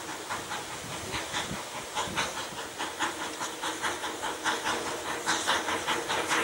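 Narrow-gauge steam locomotive working a train, its exhaust chuffing in a quick, even rhythm of hissy beats, about three to four a second.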